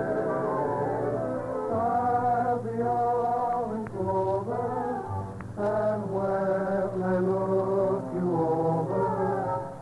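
A chorus singing held chords with orchestral accompaniment, in the narrow, muffled sound of an old radio broadcast recording.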